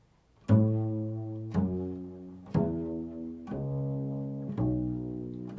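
Low notes plucked on a string instrument, five of them about a second apart at different pitches, each starting sharply and ringing out as it fades.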